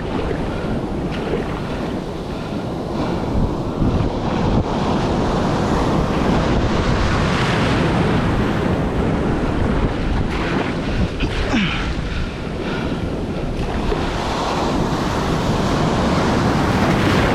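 Breaking surf and whitewash rushing around a kayak, with wind buffeting the action camera's microphone; the rush of water swells and eases several times.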